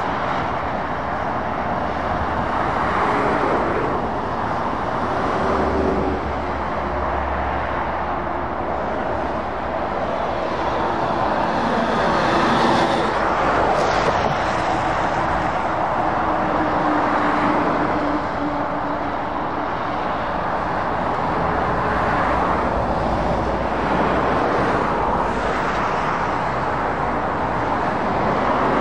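Road traffic: lorries and cars passing at speed, their tyre noise swelling and easing as each goes by, with the low drone of heavy truck engines at times.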